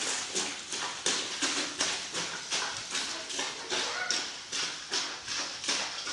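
Clothes being washed by hand: rhythmic, swishing scrubbing strokes, about three a second.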